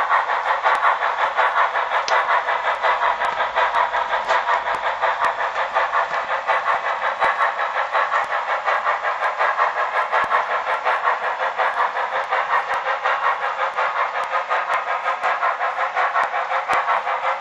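Sound system of an HO scale Proto 2000 Canadian Pacific 0-8-0 steam switcher model, playing a steady, rapid steam-locomotive chuff of about three to four beats a second. It comes through the model's small onboard speaker, so it sounds thin, with no bass.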